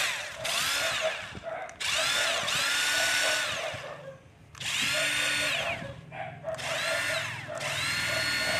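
Cordless drill with its chuck removed, its motor run in about five short trigger pulls: each time the whine climbs in pitch, holds, and winds down again.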